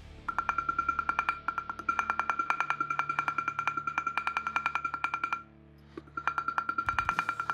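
Small hammer tapping a thin brass guard plate on a steel anvil to texture its surface, about eight or nine quick, light, ringing strikes a second. The tapping stops briefly just after the start and again for under a second about five and a half seconds in.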